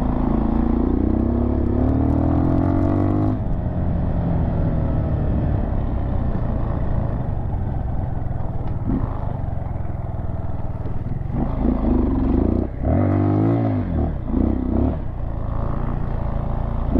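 Dirt bike engine running as the bike is ridden, its revs climbing over the first three seconds or so, then holding steady, then rising and falling several times a little past the middle as the throttle is worked.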